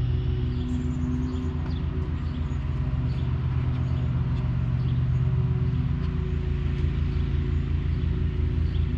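A 7-inch FlorCraft tile wet saw's electric motor runs steadily, its blade spinning freely with nothing being cut, on a first test run after assembly.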